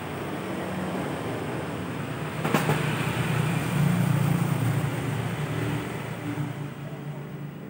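Low rumble of a passing motor vehicle, swelling through the middle and fading toward the end, with a single sharp click about two and a half seconds in.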